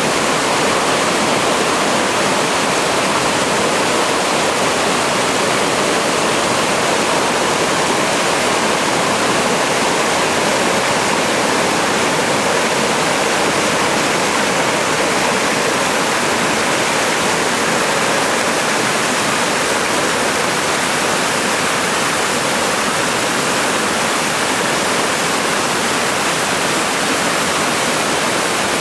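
Forest stream rushing over rocks in small cascades, a loud, steady rush of white water.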